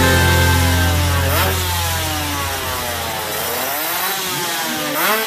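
Stripped-down drag motorcycle's small, high-revving engine blipped repeatedly at the start line, its pitch sweeping up and falling back in quick rises, with sharp blips about a second and a half in, near four seconds and near the end.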